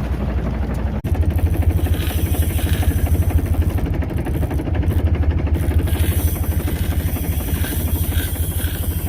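Boat engine running with a fast, steady low throb. It breaks off for an instant about a second in and carries on a little louder.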